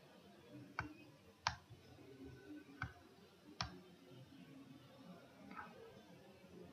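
Computer mouse clicking: four short, sharp clicks at uneven intervals in the first four seconds, quiet against a faint background.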